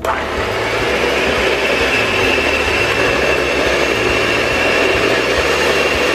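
Electric hand mixer switched on and running steadily with a high whine, its beaters whipping cream in a plastic jug.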